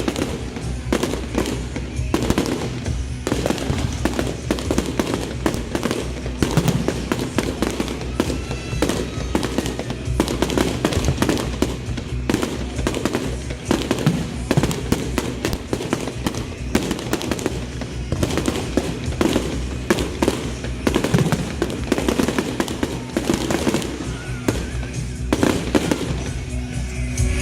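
Fireworks finale: a dense, unbroken barrage of bangs and crackles, with music playing underneath.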